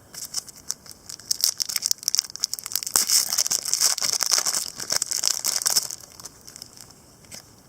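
Crinkling and rustling of a trading-card pack wrapper and cards being handled: a dense run of small crackles that dies down after about six seconds.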